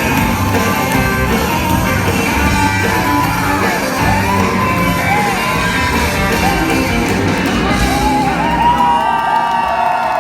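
Loud music with singing, and a crowd shouting and whooping over it in a large hall.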